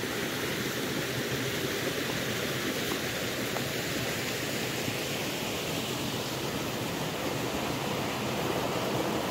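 Steady rushing of a swollen, muddy stream.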